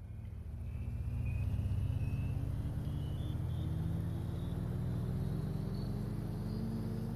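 An engine running, fading in and then climbing slowly and steadily in pitch.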